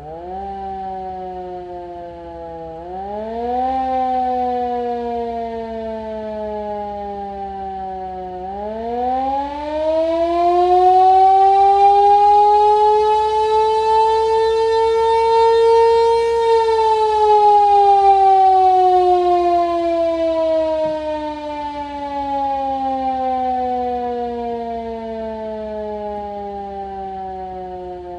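Tokyo Siren electric motor siren wailing: it winds up in pitch about three seconds in and sags, then winds up again to its highest and loudest wail, holds it briefly, and slowly winds down in pitch.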